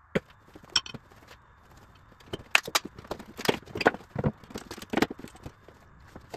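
Wooden pallet blocks and boards knocking and clattering onto a concrete floor as a pallet is broken apart: a quick series of separate hard wooden knocks and clunks, densest in the middle.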